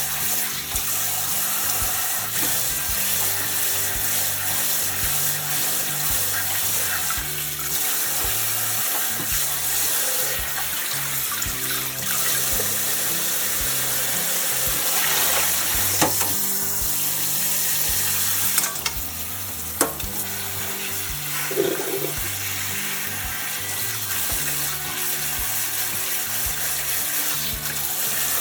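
Tap water running into a sink, with a few sharp knocks partway through, over background music.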